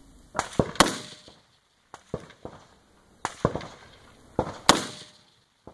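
Gunshots fired in quick strings of two or three, each sharp crack followed by a short echo. The loudest shots come about a second in and near the end.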